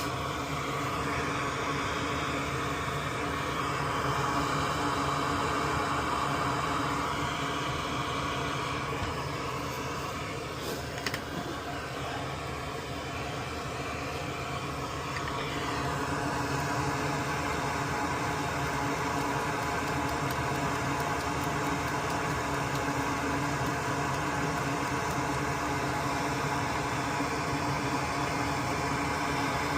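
Steady hum of a small motor-driven fan, with a few faint clicks about eleven seconds in.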